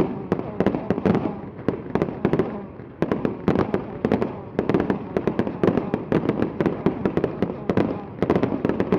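Fireworks going off in a dense, rapid barrage of bangs and cracks, many each second, without a pause.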